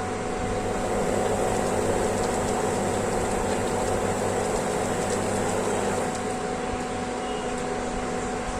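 Induction stove running with a steady hum, with water boiling in a pan on it; the sound eases slightly about six seconds in.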